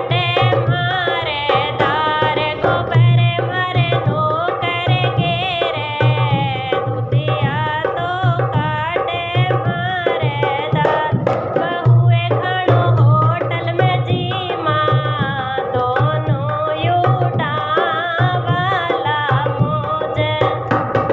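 Haryanvi folk music: a steady hand-drum beat with many quick strokes under a wavering melodic line.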